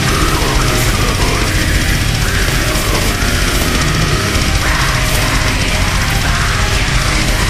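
Heavy metal music playing loud and unbroken.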